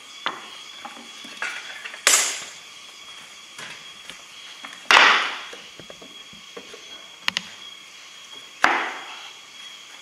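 Wooden boards being handled and knocked against a wooden frame: three loud wooden clacks, each dying away over about half a second, with a quick double click and a few lighter knocks between.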